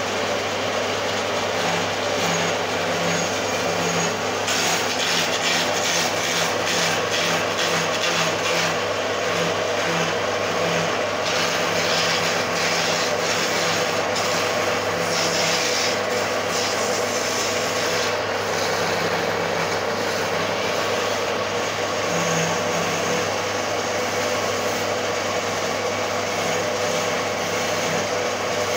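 Motor-driven wood lathe running with a steady hum while a hand-held chisel cuts into the spinning wooden blank of a charpai leg. The cutting noise comes and goes, heaviest between about 4 and 17 seconds in.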